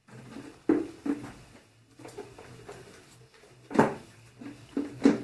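Hard plastic knocks and clicks from a motorcycle's plastic airbox and wiring harness being handled and unclipped by hand. There are two sharp knocks about a second in, a louder one a little before four seconds, and two more near the end.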